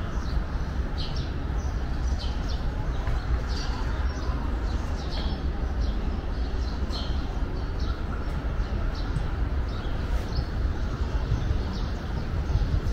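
Small birds chirping in short, high calls about once or twice a second over a steady low rumble. The chirps thin out toward the end.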